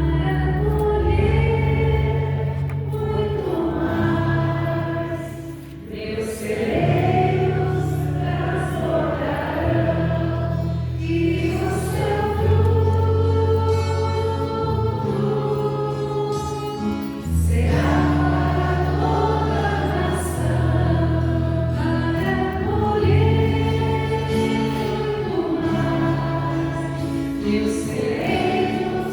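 Worship music: voices singing a Christian worship song in long held notes over a steady sustained bass and keyboard accompaniment, dipping briefly about six seconds in.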